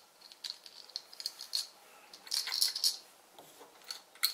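Plastic brick parts of a Sluban toy fire truck clicking and rattling as its ladder arm is lifted and moved by hand, with a quick run of clicks about halfway through and another near the end.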